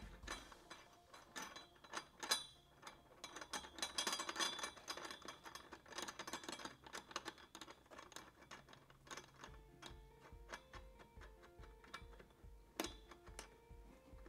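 Light metallic clicking and rattling of a steel U-bolt bracket as its wing nuts are turned by hand against a metal pole. About nine seconds in, the clicks thin out and background music with a steady beat takes over.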